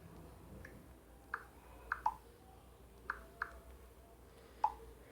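Smartphone being typed on: six short, sharp taps or keyboard clicks at an uneven pace.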